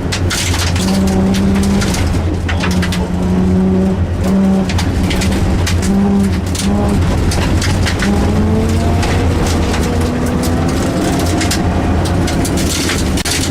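Rally car engine at speed, its note held and then breaking off and rising again through gear changes. Frequent sharp clicks and knocks of stones thrown against the car run throughout.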